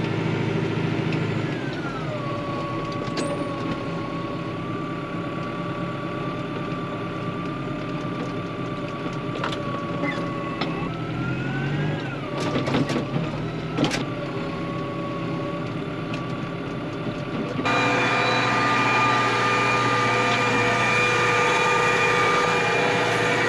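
Vehicle engine and drivetrain running with a steady whine; the pitch dips and recovers about two seconds in and again about twelve seconds in, with a few sharp knocks in between. About eighteen seconds in it jumps abruptly to a louder, higher whine.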